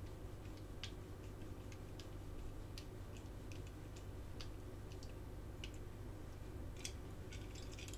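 Faint, irregular small clicks and ticks of a precision screwdriver turning a screw into a diecast toy van's metal bottom plate, with several clicks in quick succession near the end, over a steady low hum.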